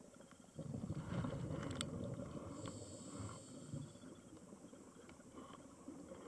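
A scuba diver's exhaled bubbles from the regulator, a bubbling underwater rumble that starts about half a second in, lasts about three seconds, then fades to faint underwater background with a few small ticks.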